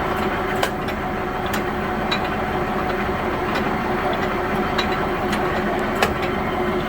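Heyligenstaedt 400A/30 heavy engine lathe running under power, its gearbox and feed drive giving a steady hum, with irregular sharp ticks; the loudest comes about six seconds in.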